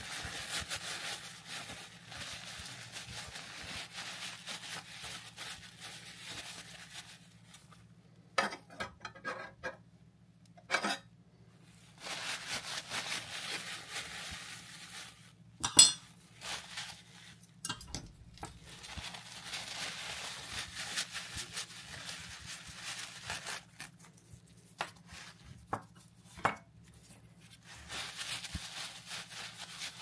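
Paper towel rustling as small derailleur parts are wiped clean by hand, in stretches with pauses between. A few sharp clicks and clinks from the parts (cage plates, spring, pulley wheel) being handled and set down on the bench, the loudest about halfway through.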